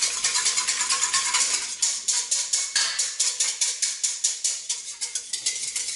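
A whisk beating against the sides of a stainless steel bowl of water, a rapid, even run of clicking strokes, dissolving dry yeast into the liquid.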